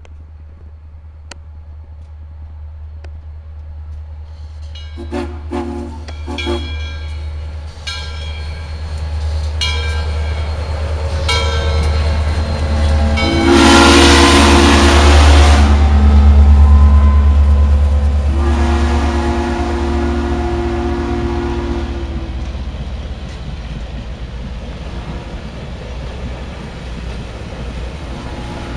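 Steam locomotive No. 630 passing close by with its train, a heavy rumble that builds and then eases as the coaches follow. Its chime whistle sounds in a string of short toots, then a long blast with a loud rush of steam as the engine goes by, a second long blast a few seconds later, and another near the end.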